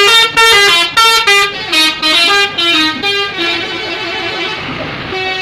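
Indonesian 'telolet' bus horn, a multi-tone air horn playing a rapid melody of short notes stepping up and down in pitch. The melody is loud for about the first three seconds, softer notes follow, and another phrase starts near the end.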